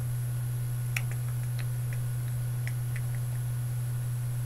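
A long paper receipt handled in both hands, giving a scatter of small crinkles and ticks that start with one sharper click about a second in. Under it runs a steady low hum.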